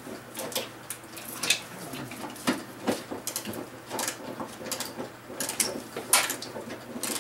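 Small hand socket ratchet clicking in short, irregular strokes as a bolt is worked on a car body.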